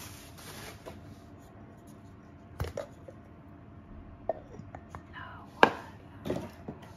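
Glass storage jars with bamboo lids being handled on a wooden floor: a few sharp knocks and clinks as jars and lids are put down, the loudest about two-thirds of the way through, over light rustling of bubble wrap at the start.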